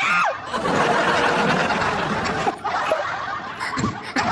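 Laughter, continuous, with a high squeal falling in pitch right at the start.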